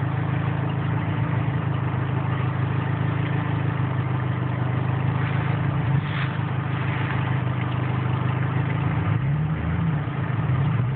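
A vehicle engine idling steadily, its pitch wavering briefly up and down about nine seconds in.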